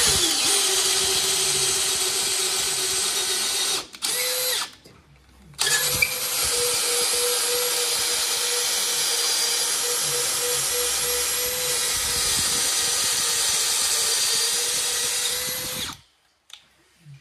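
Makita cordless drill turning a short wood auger bit, boring through a timber stud. It runs for about four seconds, its note dropping just after it starts, gives a brief burst, then runs steadily for about ten seconds and stops near the end.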